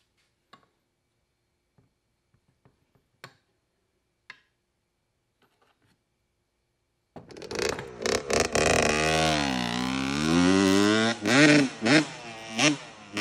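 A few faint clicks of parts being handled, then about seven seconds in a two-stroke dirt bike engine starts sounding loudly, revving so that its pitch falls and climbs again several times.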